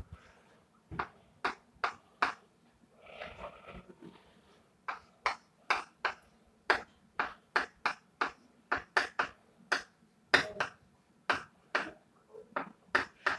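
A string of short, sharp taps, about two or three a second in an uneven rhythm, with a brief soft rustle about three seconds in.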